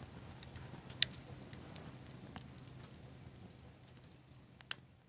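Small bonfire of pine cones and tree seed pods crackling faintly, with sharp pops about a second in and near the end, fading out at the close.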